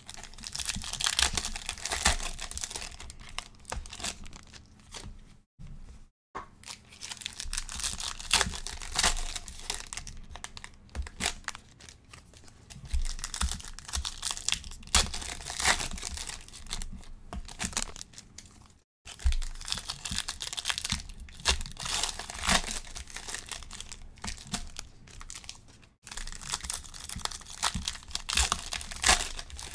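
Trading card pack wrappers being torn open and crinkled by hand, in irregular bursts of tearing and crackling.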